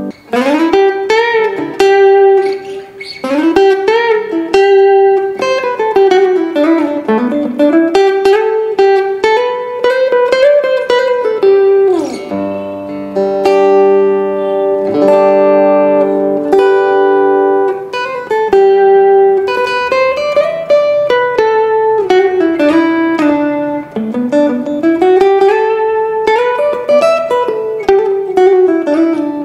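Donner Hush I silent travel guitar played through its pickup with the low and high controls set to the middle: a plucked melody of single notes ringing over chords, in phrases that climb and fall.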